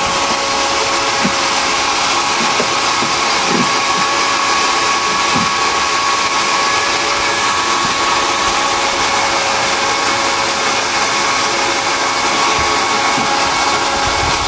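A small electric motor running steadily: a constant whine over a rushing, airy noise, with a few soft knocks in the first few seconds.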